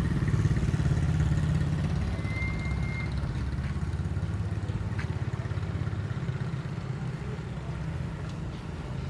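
Mitsubishi Mirage G4's three-cylinder engine running with a steady low hum that eases slightly toward the end. A short high tone sounds about two seconds in.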